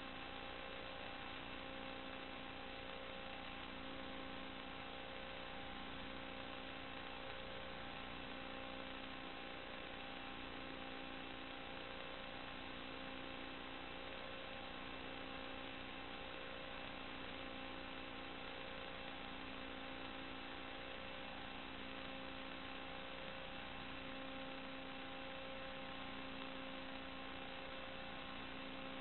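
Steady electronic hum and hiss, with several fixed tones held constant and nothing else changing.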